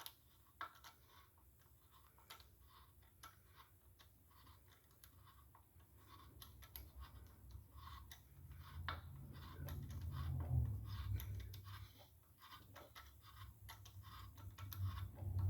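Faint scattered clicks and small metal taps from hand tools working on a cast-iron engine block during crack pinning, with a low hum that swells about eight seconds in and fades again a few seconds later.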